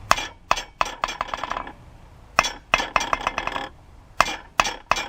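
Rebound test on a hardened steel anvil face: a piece of steel is dropped three times and bounces with bright rings, the bounces coming quicker and quicker as each drop settles. The lively rebound is the sign that the face hardened in the heat treatment.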